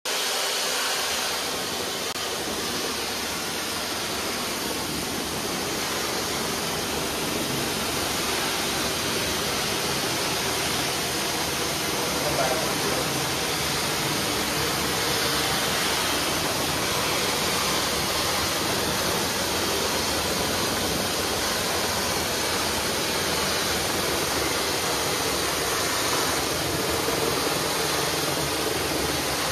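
Grout-cleaning equipment running on bathroom tile: a steady, unbroken rushing hiss of spraying water.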